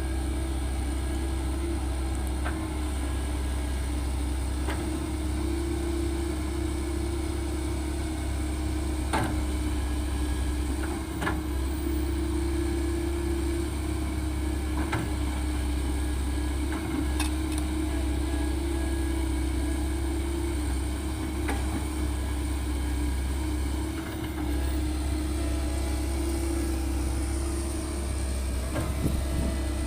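Heavy diesel engine running steadily at a constant speed, with a few sharp knocks scattered through it.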